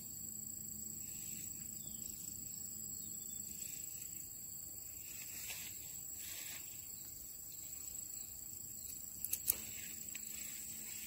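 A steady, high-pitched insect trill, cricket-like, running unbroken through the outdoor ambience. About nine seconds in, three quick clicks stand out as the loudest sounds.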